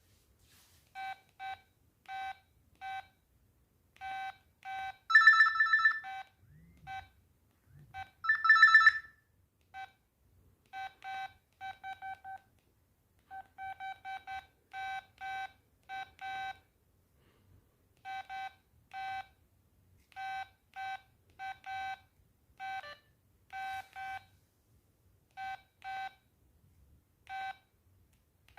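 LG MD5330 mobile phone's keypad beeps: many short beeps at one pitch, spaced unevenly as the buttons are pressed to move through the menus. Two longer, louder tones of a different pitch sound about five and eight and a half seconds in.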